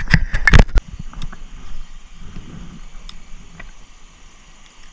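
A quick burst of sharp knocks and clatter in the first second as a small chain pickerel is handled for release in an aluminium jon boat. A few scattered ticks and a faint steady hiss follow.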